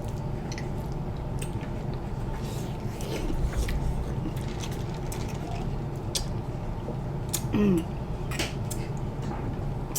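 Quiet eating at a table: scattered small clicks and taps of food and utensils over a steady low hum, with one short vocal sound about seven and a half seconds in.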